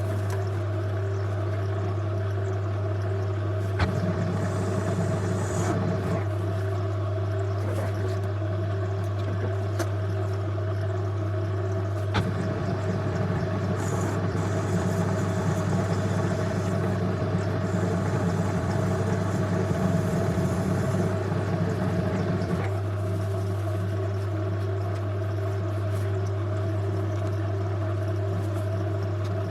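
Myford Super 7 lathe running steadily with a low motor hum, while a cutting tool bites into the workpiece twice: briefly about four seconds in, then for about ten seconds from about twelve seconds in, adding a rougher, hissing cutting noise that stops with a click.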